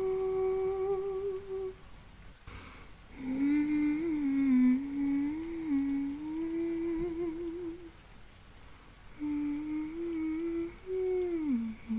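A woman humming a slow, gentle lullaby melody in three phrases with a slight wavering in held notes; the last phrase slides down in pitch near the end.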